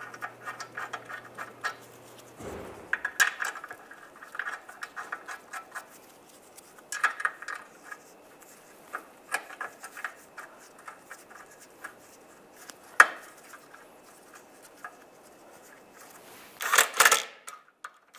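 Small steel bolts and a metal plate clinking and rattling as the bolts are started by hand into the lower control arm, with short runs of rapid clicking. Near the end comes a louder burst of rapid clicks as a socket tool runs a bolt in.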